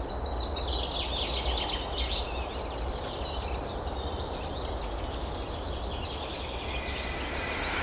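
Many birds chirping and calling together in quick overlapping notes over a steady low wind rumble. The birdsong fades out near the end as a rising hiss comes in.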